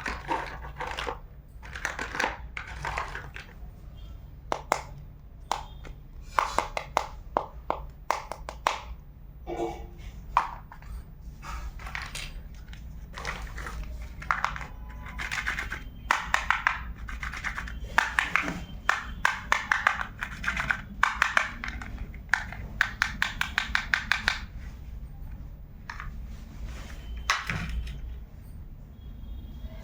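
Small plastic toy kitchen pieces and their packaging being handled: a long run of light clicks, taps and rustles, thickest in the middle stretch, over a faint steady low hum.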